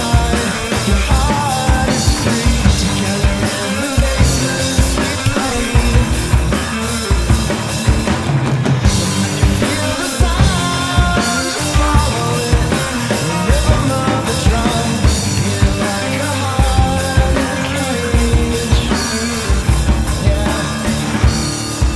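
Rock band playing an instrumental passage with no singing: a drum kit keeps a steady driving beat under electric guitar.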